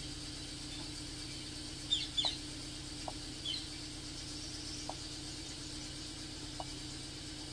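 Toyota Altis four-cylinder engine idling roughly with a misfire, a steady low hum. A few short clucks from a chicken stand out about two seconds in and again shortly after.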